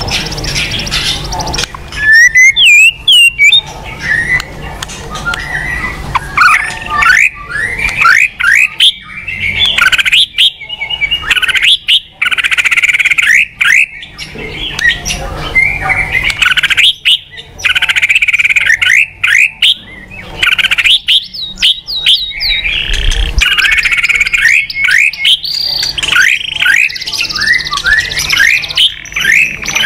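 White-rumped shama singing loudly: a varied run of rapid whistled and chattering phrases, one after another with short pauses.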